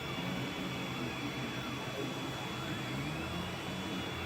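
Anet A8 3D printer running mid-print: its stepper motors whine in slow arcs that rise and fall in pitch as the print head speeds up and slows down, over a steady hum.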